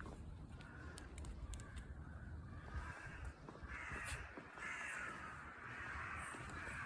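Crows cawing: harsh, drawn-out caws that come in a run from about halfway through, with fainter calls before.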